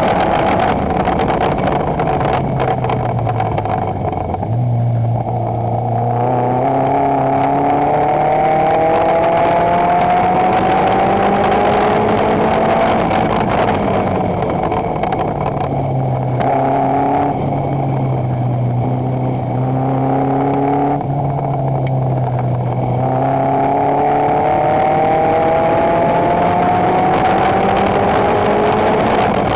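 Toyota 3S-GE four-cylinder engine of a Lotus Seven-style sprint car under hard acceleration, heard from the cockpit. Its note climbs in long rising sweeps as it pulls through the gears, falling back to a lower, steadier note a few seconds in and again through the middle before climbing again.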